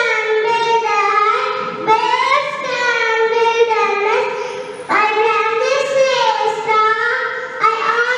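A young girl singing a recitation piece into a microphone in a high sing-song voice, with long drawn-out notes in a few phrases.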